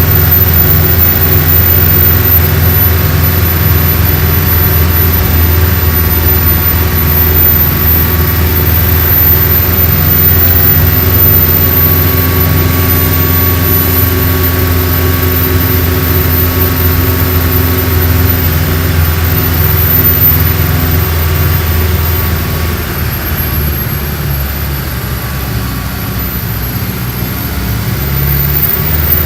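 Mercedes-Benz OF-1417 bus's diesel engine running steadily and loudly. It eases off about two-thirds of the way through and picks up again near the end.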